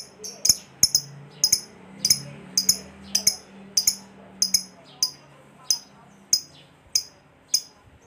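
A Fischer's lovebird giving a long run of sharp, high-pitched chirps, about two to three a second: the extended chatter ('ngekek panjang') that lovebird keepers prize.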